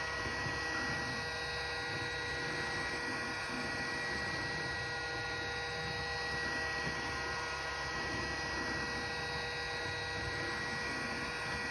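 Heat gun blowing steadily at 300 °C to soften an iPhone's back-glass adhesive seal: a constant rush of air with a steady fan whine.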